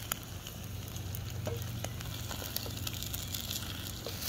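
Noodles frying in a wok, a steady sizzle with small crackling pops throughout, while a wooden spoon stirs them.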